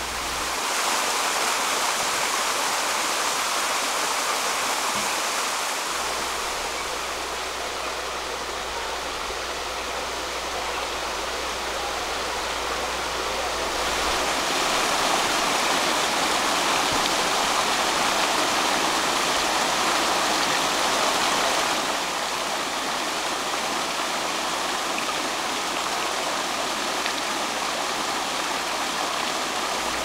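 Shallow stream running over stones and gravel, a steady rush of water that grows louder for several seconds in the middle.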